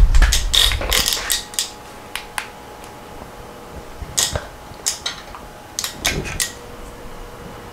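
Workshop handling sounds: a loud low rustling rumble in the first second as someone brushes close past the microphone, then scattered light metallic clicks and taps of tools and parts being handled around the engine.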